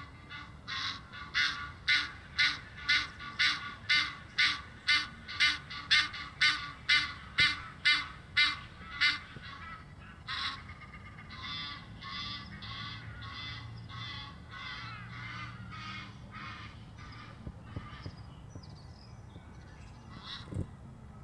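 Egyptian geese honking: a loud, rapid run of harsh honk calls, about two a second, for the first nine seconds. After a short break a second, softer series of calls follows and fades out.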